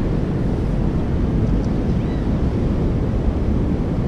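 Wind buffeting the camera microphone in a steady low rumble, with sea surf washing behind it.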